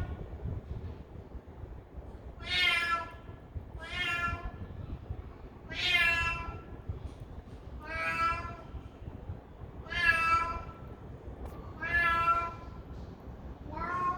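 Stray cat meowing over and over, about one meow every two seconds, each a single drawn-out call. A steady low rumble runs underneath.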